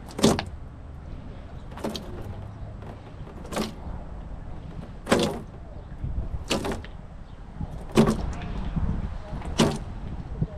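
Squeeze bottle of purple cleaning liquid squirted into an empty plastic wheelie bin in seven short, sharp squirts, about one every second and a half, over a steady low rumble.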